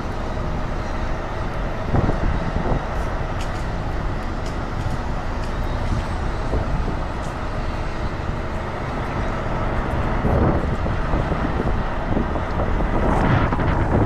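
A semi truck's diesel engine running steadily at low speed as the rig is eased around a tight curve, heard from inside the cab, with the level rising a little near the end.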